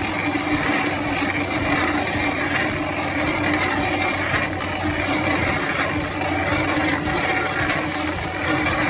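Stump grinder's engine running steadily under load, with a rough grinding noise over an even hum.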